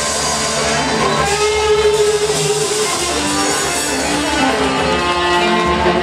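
Live blues band playing, with electric guitar out front over the band.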